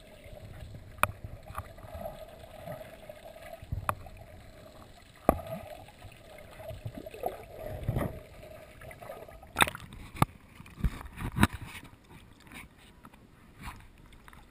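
Muffled underwater water noise heard through a waterproof camera housing held by a swimming snorkeler, with low rumbles of movement. Several sharp clicks and knocks on the housing come through along the way.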